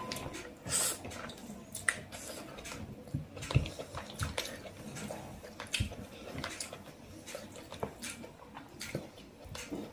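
Close-up eating sounds: wet chewing and lip smacking of chicken curry and rice, with fingers squishing rice and curry gravy on a plate. The sounds come as irregular small clicks and wet smacks.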